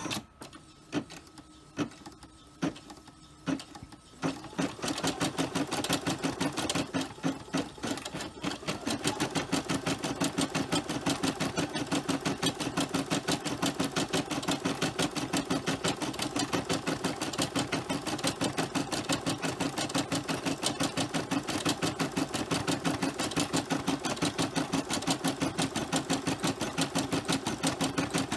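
Brother SE425 embroidery machine stitching out a design: a few clicks at first, then rapid, regular needle strokes that start about four seconds in and grow louder and steady a few seconds later.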